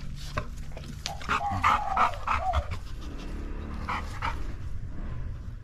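Pit bull–type dog panting close by with her tongue out.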